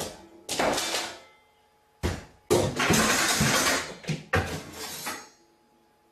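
About five sudden loud bangs and crashes of household objects in a kitchen, one a rattling clatter lasting well over a second in the middle.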